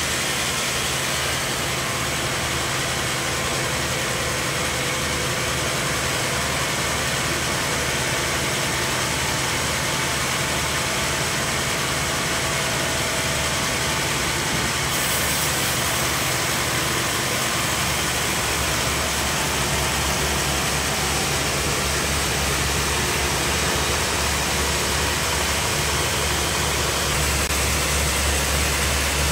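Large sawmill log bandsaw running, its blade cutting through a big trembesi log, over a steady low machine hum. About halfway through the sound changes, and the low hum grows a little louder near the end.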